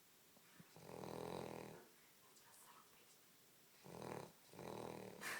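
Dog snoring in its sleep: a long snore about a second in, then two shorter snores close together near the end.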